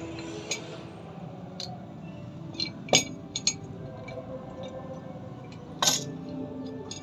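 Scattered light clinks and taps of hard objects being handled, with two louder knocks about three seconds and six seconds in.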